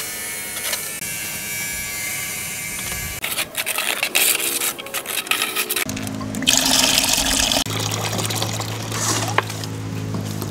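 A steady hiss, then clicking and clattering, with low sustained music notes coming in about halfway through and changing pitch once.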